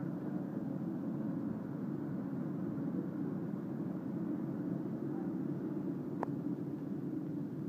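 Steady low rumble of engine-driven equipment running, with one sharp click about six seconds in.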